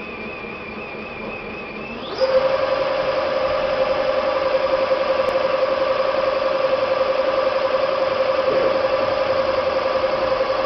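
Electric motor of a bias-tape cutting machine starting up about two seconds in, then running steadily with an even whine.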